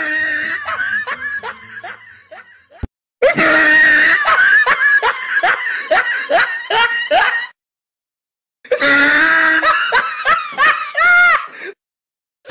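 Hard laughter in quick repeated bursts, in edited-in clips cut by two stretches of dead silence, typical of a laugh sound effect laid over a prank video.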